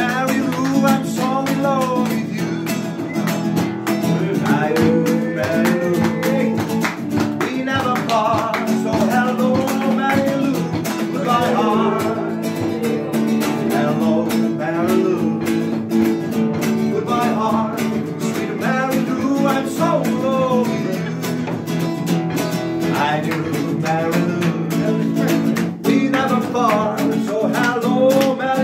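A man singing a song in a wavering voice while strumming an acoustic guitar.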